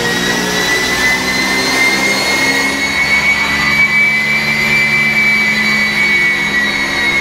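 BMW X5 F15's tuned four-cylinder engine running under load in sixth gear on a chassis dynamometer, tyres driving the rollers at about 114 km/h. A loud high whine rises slightly and then holds over the engine's low drone, like an airplane.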